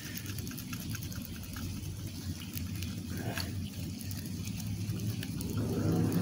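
Plastic scratcher scraping the coating off a scratch-off lottery ticket in short, irregular strokes, over a steady low background rumble.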